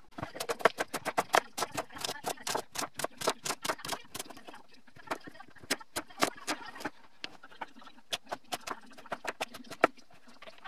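Large kitchen knife chopping Hokkaido pumpkin on an end-grain wooden cutting board: quick runs of sharp chops, several a second, thinning out into shorter groups after about four seconds.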